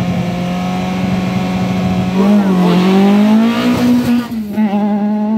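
Volkswagen Golf Mk2 rally car's engine held at steady high revs on the drag start line. About two seconds in it launches: the engine note dips, then climbs and gets louder as the car pulls away past. It settles into a steady, slightly higher note near the end.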